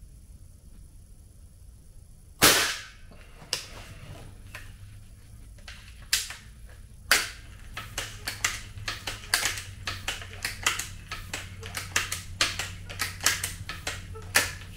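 One sharp crack of a Seneca Dragonfly Mk2 multi-pump pneumatic air rifle firing, about two seconds in, ringing briefly. It is followed by a few separate clicks, then a run of clicks and knocks, two or three a second, as the rifle's pump lever is worked.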